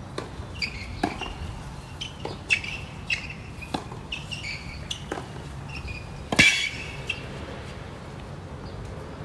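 Tennis rally on a hard court: a racket hits the ball about every one and a quarter seconds, with the loudest hit about six and a half seconds in.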